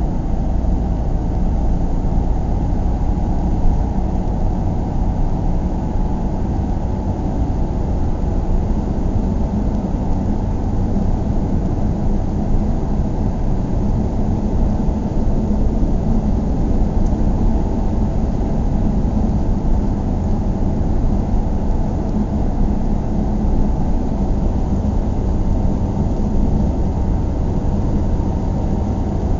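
Car driving at a steady pace: a constant low rumble of road and engine noise with a faint hum, unchanging throughout.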